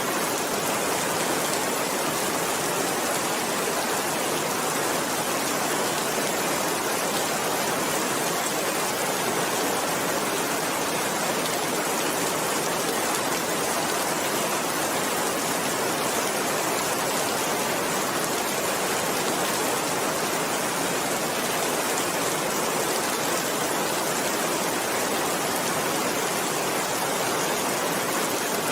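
Steady rain falling, an even hiss with no thunder and no single drops or other sounds standing out.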